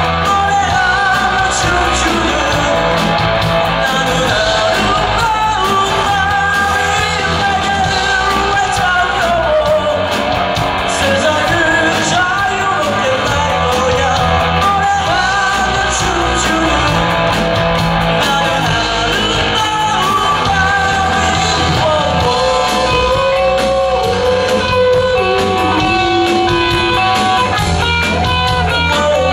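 Live rock band playing: a lead singer sings over electric guitars, keyboard and a drum kit.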